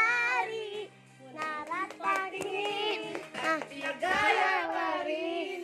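A child singing, with music underneath.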